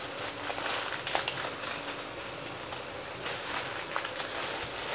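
Plastic instant-noodle packet crinkling softly as it is handled and worked open, with a faint steady hum underneath.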